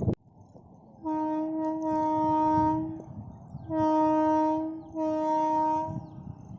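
Locomotive horn sounding three times: a long blast of about two seconds, then two shorter ones, over the low rumble of a passing train.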